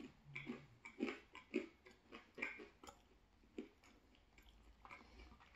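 Faint close-up chewing of thin-crust pizza: irregular soft crunches and wet mouth clicks that thin out after about three seconds, with a short low hum near the start.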